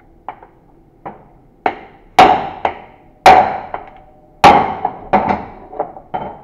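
Hammer blows on the steel shell of an automatic transmission torque converter, about a dozen in all. Lighter taps come between three heavy strikes, and each heavy strike leaves a lingering metallic ring, as the converter's cover is knocked loose from its body.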